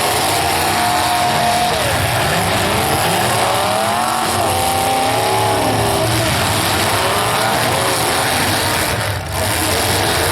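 Demolition derby car engines revving, their pitch rising and falling, over a loud steady din of the arena. The sound dips briefly about nine seconds in.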